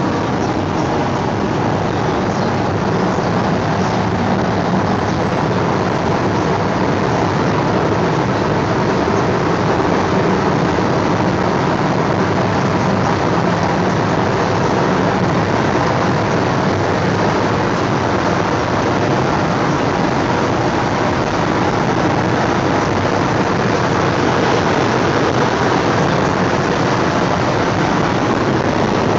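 Steady in-cabin noise of a Pontiac Grand Prix GXP cruising at speed: road and wind noise over the low drone of its V8.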